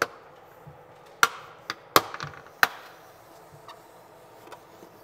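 Plastic diffuser cover being pressed up into an aluminium LED-strip channel under a cabinet, snapping into place: a series of sharp clicks and snaps, most of them in the first three seconds, with a few fainter ones after.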